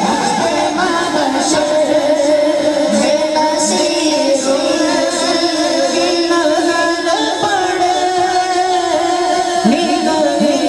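Naat sung without instruments through a public-address sound system with heavy echo: voices holding long, drawn-out notes.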